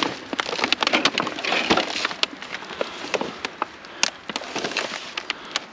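Potted plants, plastic nursery pots and plastic bags being rummaged through by gloved hands: irregular crackling and rustling with scattered light knocks.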